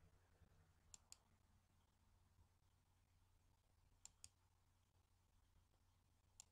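Computer mouse button clicked three times, each a quick press and release, about two and a half to three seconds apart. The clicks are faint.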